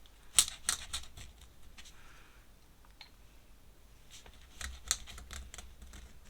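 Dip pen nib tapping and scratching on paper as ink marks are put down: light, sharp clicks, several in the first second and more scattered later, with a brief soft scratch about two seconds in.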